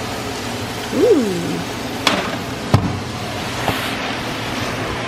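A kitchen oven door shutting with a sharp knock just under three seconds in, after a lighter click, over a steady fan hum. A short tone that rises and falls comes about a second in.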